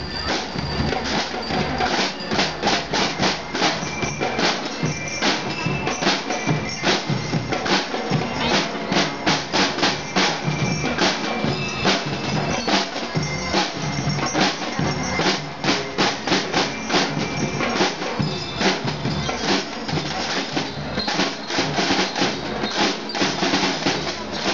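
School drum and lyre corps playing: snare and bass drums beating a dense marching rhythm, with short metallic bell-lyre notes ringing above the drums.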